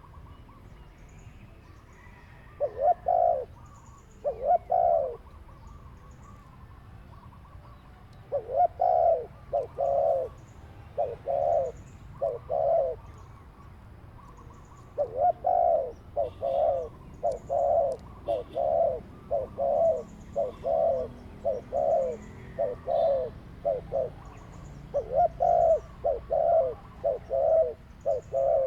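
Dove cooing: runs of low, rhythmic coos, about two a second, broken by pauses of a few seconds. Faint high chirps of other small birds can be heard in the background.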